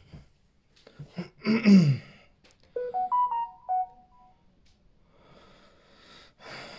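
A man's short sigh, falling in pitch, about a second and a half in. A moment later comes a brief electronic chime of a few notes stepping up and then down, from the Samsung Galaxy Tab A7 as it finishes setup and opens its home screen.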